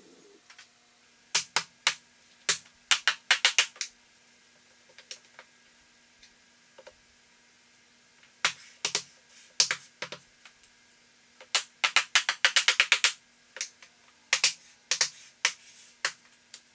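Click-lock laminate flooring planks being knocked together with a tapping block to close the joints: sharp wooden knocks in four bouts of quick taps with pauses between, with a faint steady hum underneath.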